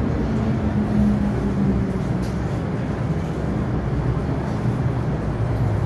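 MTR M-Train running on the rails, heard inside the carriage: a steady rumble with a faint motor whine whose pitch steps down as the train brakes into a station.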